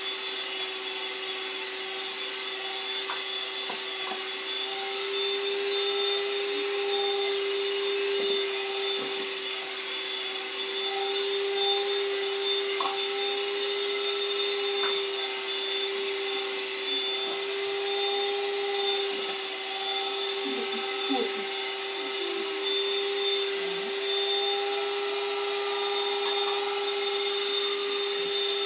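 Handheld electric mixer running steadily at one speed, a constant motor whine as its beaters whip butter cake batter in a stainless steel bowl while eggs are beaten in one at a time.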